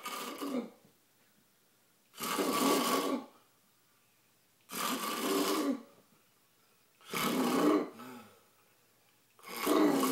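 Snoring: a sleeper drawing one snore about every two and a half seconds, each lasting about a second, with near silence between breaths.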